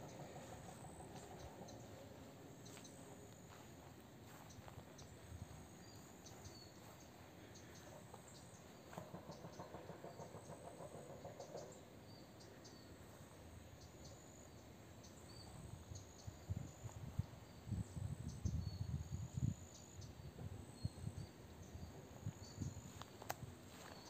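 Quiet outdoor garden ambience with faint, short high chirps repeating throughout. About two-thirds of the way through comes a run of irregular low thumps and rustling, the loudest part.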